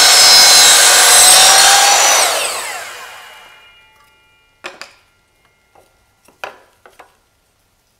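DeWalt compound mitre saw cutting a 45-degree mitre through MDF. The blade then spins down with a falling whine over about two seconds. A few light knocks follow as the cut pieces are moved.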